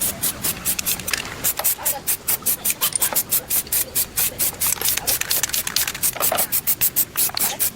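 Fast, rhythmic scrubbing or rubbing strokes, about six a second, kept up without a break.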